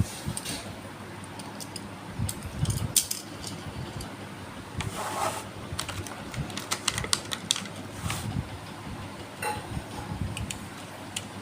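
Toy packaging and small die-cast cars being handled: irregular light clicks and taps, with a crinkling rustle about five seconds in.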